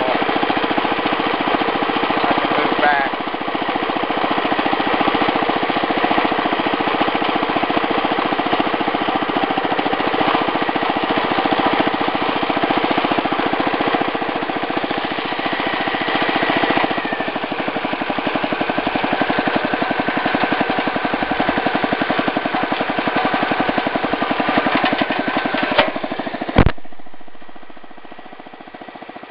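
The 8-horsepower engine of a 1965 Wheel Horse 875 hydrostatic garden tractor running steadily with a fast, even firing beat. Near the end a sharp click comes and the running sound falls away.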